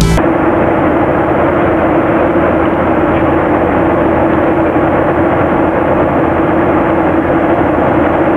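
Airliner cabin noise in flight: a loud, even rush of engine and airflow noise with a steady droning tone underneath.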